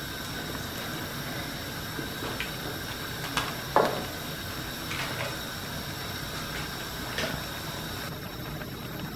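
Crab and kimchi stew simmering in a wok: a steady bubbling hiss, with a few light clicks and taps from a wooden spatula against the pan, the loudest a little under four seconds in.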